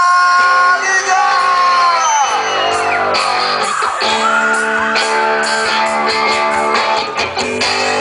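Live rock band playing loud, with singing and guitar. A long held note at the start slides down about two seconds in.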